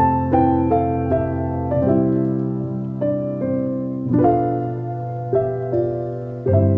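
Background piano music: a slow, gentle melody of single struck notes, one every half second or so, over held low notes.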